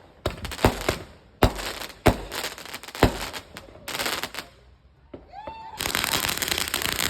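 Fireworks going off: a series of sharp bangs, each trailing into crackle, then from about six seconds in a dense, continuous crackling.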